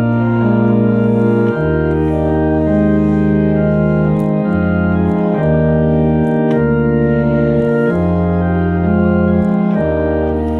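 Organ playing slow sustained chords with no singing, the bass note changing about every second.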